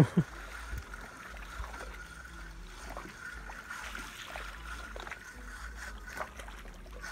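Spinning fishing reel being cranked to wind in a small fish, with scattered light clicks. A steady high tone and a low rumble sit underneath.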